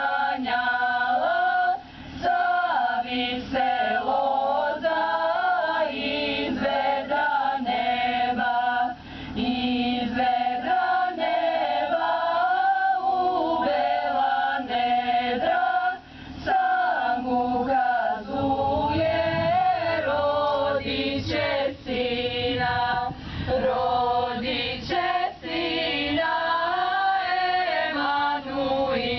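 Women's choir singing a slow song in several voices, with no instruments heard.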